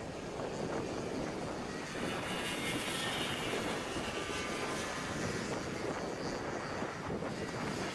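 Small two-stroke engines of several racing karts running as the karts race round the track: a steady engine drone with a faint whine that rises and falls in the middle.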